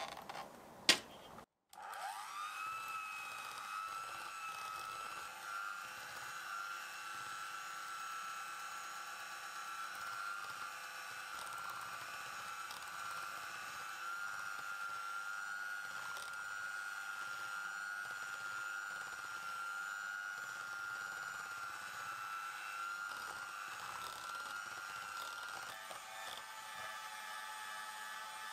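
A couple of sharp taps in the first second, then an electric hand mixer running steadily with a high hum and a slight waver in pitch, starting about two seconds in.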